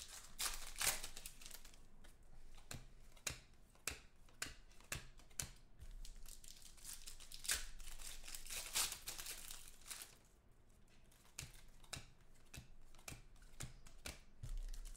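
Shiny foil wrapper of a 2014 Contenders football card pack crinkling and tearing as it is ripped open by hand, with crackly rustles and small clicks as the cards are pulled out. The loudest crinkles come about half a second in and again around eight to nine seconds in.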